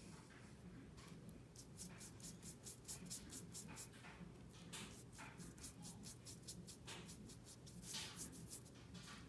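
Paintbrush stroking acrylic paint onto paper: faint, quick scratchy brush strokes, a few each second, with a louder flurry about eight seconds in.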